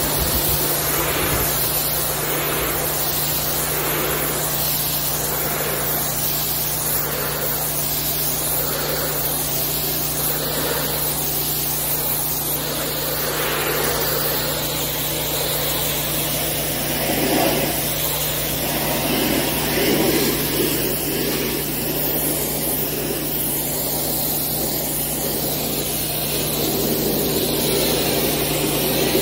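Pressure washer running steadily, its water jet hissing against a concrete step. The hiss swells and fades about once a second as the nozzle sweeps back and forth across the surface, with a few louder surges later on.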